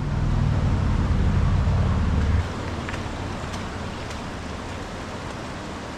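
Steady rush of falling water from Glen Ellis Falls. A loud low rumble sits over it for the first two and a half seconds and then cuts off suddenly.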